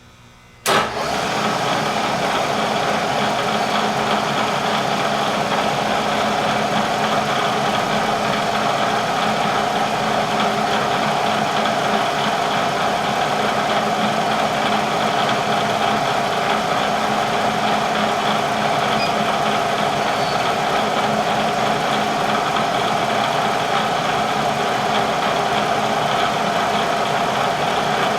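A Bridgeport milling machine switched on about a second in, its spindle motor coming up to speed and then running steadily with an even hum.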